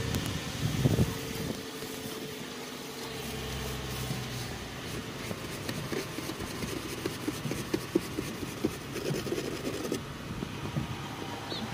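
Snow being swept off a car's windshield: a run of quick, irregular scraping sweeps, loudest in the second half. A steady engine-like hum runs underneath in the first few seconds.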